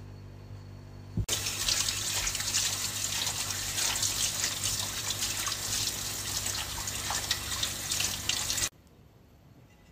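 Kitchen sink tap running, the water splashing onto a plate held under the stream. The water starts suddenly about a second in and stops abruptly near the end.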